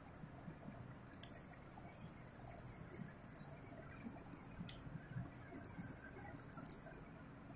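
Steel surgical instruments, hemostats and forceps, giving short, sharp clicks and clinks at irregular intervals as they are handled and locked.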